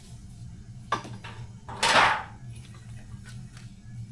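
Handling noise of a motorcycle wiring loom being worked out of the frame: a knock about a second in, then a short, louder scrape about two seconds in, with a few light clicks, over a steady low hum.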